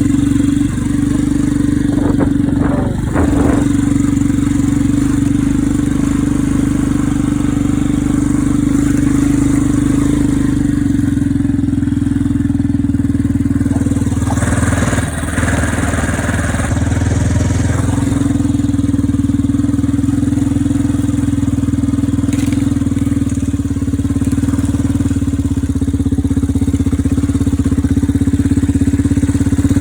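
ATV engine running at a steady pace while riding, a constant drone. A short rush of noise comes about halfway through.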